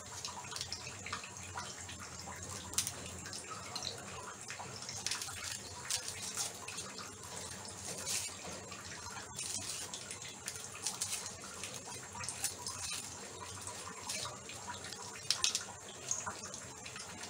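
Small red onions peeled with a kitchen knife: scattered light scrapes and crackles of dry onion skin over a steady background hiss.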